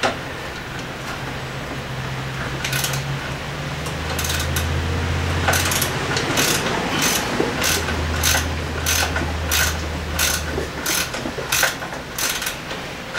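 Ratchet wrench worked back and forth on a bolt at an outboard's bracket, its pawl clicking in regular strokes about two a second from about four seconds in.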